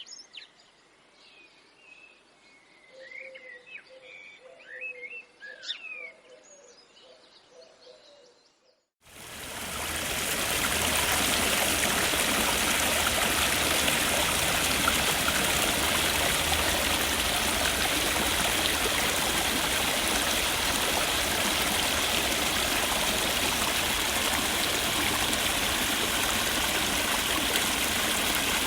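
Birds chirping and calling over a quiet background. After about nine seconds this cuts to a loud, steady rush of flowing water.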